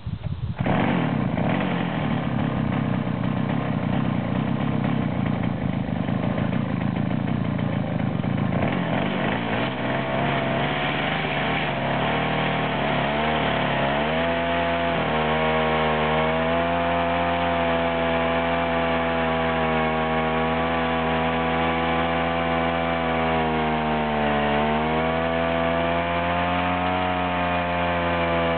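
Two-stroke engine of a Ural chainsaw running at high revs on a homemade chainsaw mill, its chain ripping lengthwise through a pine log. The engine note is rough at first, then settles to a steady pitch about ten seconds in, dipping briefly now and then as the load changes.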